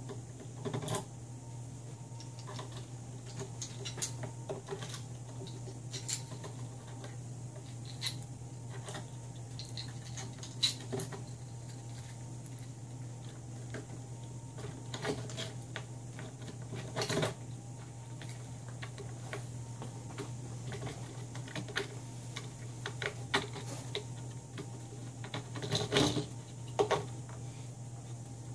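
Irregular small clicks and taps of screws, washers and nuts being handled and fastened with fingers and a screwdriver on an OSB board, louder in a cluster near the end, over a steady low hum.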